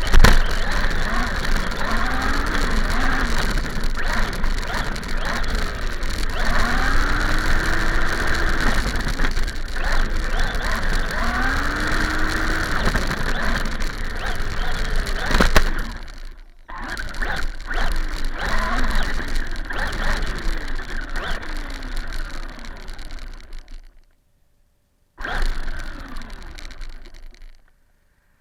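RC car motor revving up and down over a constant hiss, with the pitch rising and falling repeatedly. The sound cuts out abruptly for a moment about two-thirds of the way through, again for about a second near the end, and stops suddenly just before the end.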